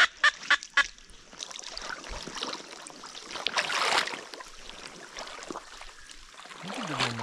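A quick run of four or five loud duck quacks, followed by water sloshing and splashing as a hunter wades through knee-deep marsh water.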